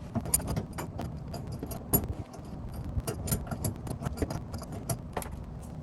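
Irregular small clicks, clinks and rattles of parts and tools being handled while refitting the fuel pump, filter and accumulator assembly.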